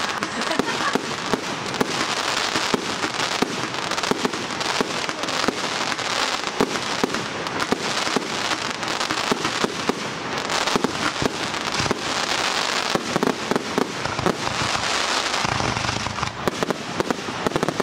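Fireworks display: aerial shells bursting overhead in quick succession, a dense run of rapid sharp pops and cracks.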